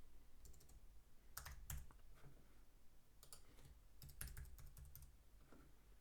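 Faint, scattered keystrokes on a computer keyboard, a few at a time with pauses between, as login details are typed in.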